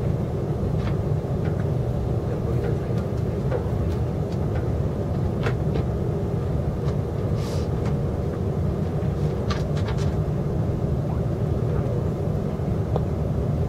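Steady low rumble inside a KTX high-speed train carriage, with a few light clicks and a brief hiss just past halfway.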